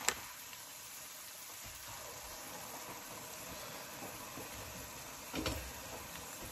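Faint, steady sizzling hiss of masala baingan cooking in a wok over a low gas flame, with one short knock about five and a half seconds in.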